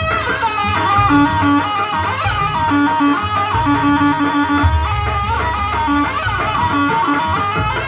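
Jaranan dance accompaniment music: a wavering lead melody that bends in pitch, over low sustained tones that stop and start and repeated short mid-pitched notes.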